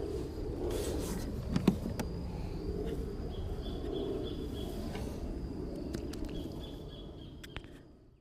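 Outdoor creekside ambience: a steady low rumble with a few sharp clicks, and a bird or insect giving faint rapid high chirps twice. It fades out near the end.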